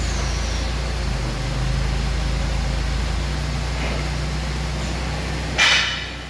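FEMCO Kafo VMC-21100 CNC vertical machining center running with a steady low hum. Near the end comes a short, loud hiss of compressed air, after which the hum drops.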